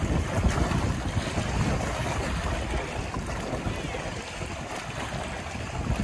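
Wind gusting over the microphone, a rough fluttering rumble, with choppy waves splashing against shoreline rocks. The gusts ease a little in the second half.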